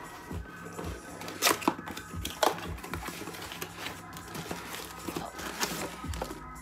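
A cardboard shipping box being pulled open by hand: rustling and scraping of cardboard flaps, with a few sharp snaps, the loudest about one and a half and two and a half seconds in.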